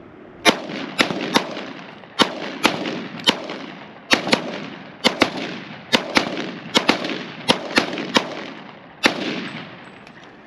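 Gunfire: about twenty shots in quick, irregular strings, each shot followed by a long echoing tail.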